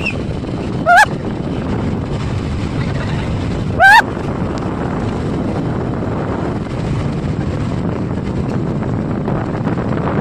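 Motorboat engine running steadily, with wind buffeting the microphone and water rushing past the hull. Twice, about a second in and again about four seconds in, a short, loud call rises sharply in pitch.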